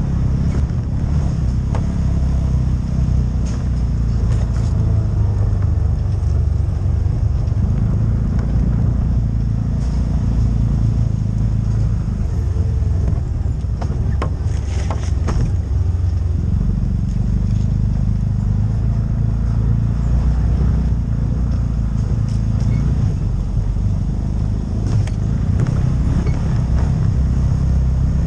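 CFMOTO UFORCE side-by-side driving on a dirt trail: its engine runs steadily under way, easing off twice and picking up again. A few knocks come about halfway through.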